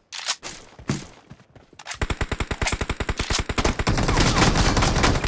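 Video-game gunfire: a few single shots, then from about two seconds in a long, fast burst of automatic fire.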